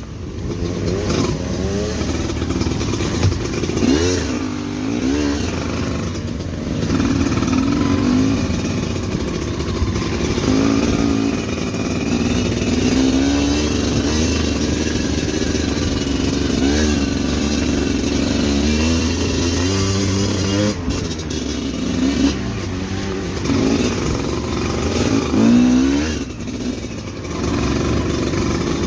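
Motorcycle engine revving up and down over and over, the throttle worked constantly as it climbs a rough, rocky trail.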